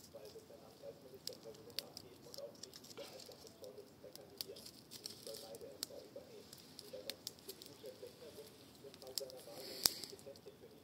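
Wood campfire burning, crackling with irregular sharp pops over a steady hiss of the flames, with one louder crack near the end.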